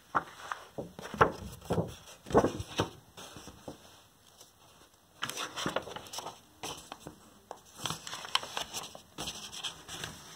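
Paperback picture book being handled and its cover and pages turned: paper rustling and crinkling, with a few soft handling thumps in the first three seconds.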